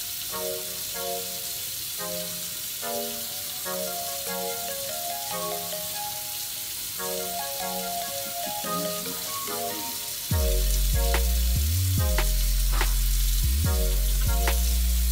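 Cajun shrimp gravy sizzling and simmering in a skillet as it is stirred with a silicone spatula, under background music; about ten seconds in, a heavy bass line comes into the music and it turns much louder.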